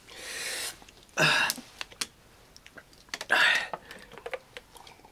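Three sharp, breathy rushes of air through the mouth, about a second and two seconds apart, as someone breathes against the burn of a hot pepper-flavoured bean. Small clicks and crinkles of a plastic water bottle and cup as they drink run between them.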